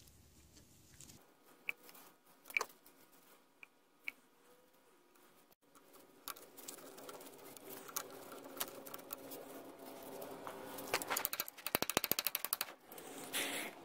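Small screws being turned by hand with a screwdriver into a plastic outboard water pump housing: faint scattered clicks, then scraping and rubbing of metal on metal and plastic, with a quick run of rapid clicks near the end.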